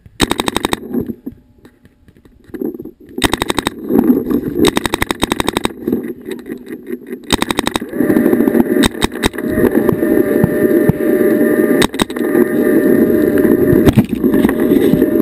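Paintball marker firing rapid strings of shots, three short bursts in the first eight seconds. Then a steady rushing noise with scattered knocks as the player runs and slides into the grass.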